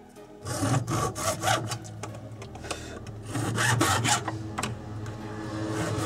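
Junior hacksaw cutting through white plastic pipe held in a vise: quick back-and-forth rasping strokes that start about half a second in and keep going.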